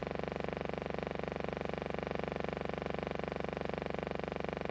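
A steady hum with a fast, even pulse that never changes. The footage is a silent film, so this is noise from the film transfer, not sound from the repair work.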